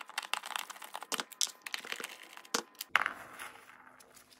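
Quick small clicks and crackles of a screwdriver working screws out of the plastic base of an electric pencil sharpener, with gloved hands handling the housing; a sharper click about three seconds in.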